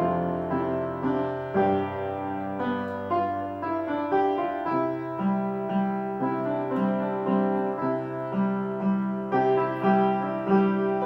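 Piano playing a slow, even piece, a new note or chord about every half second over a held low bass note.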